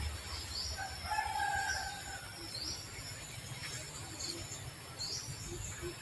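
A rooster crows once, one drawn-out call about a second in, over short high chirps that repeat about once a second and a low rumble.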